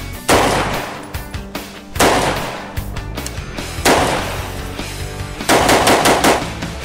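5.56 short-barreled AR-15 carbine with a muzzle brake firing: three single shots about two seconds apart, each ringing out, then a quick string of several shots near the end. Background music plays underneath.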